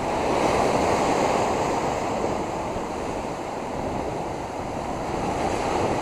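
Rough surf: short-interval waves breaking into constant whitewash, a steady rushing wash with some wind on the microphone.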